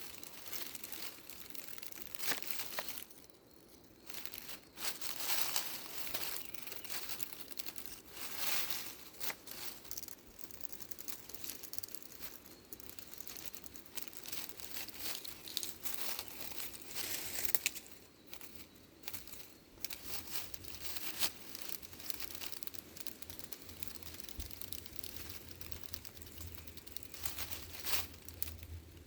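Irregular rustling and crinkling in uneven bursts, with a few brief lulls.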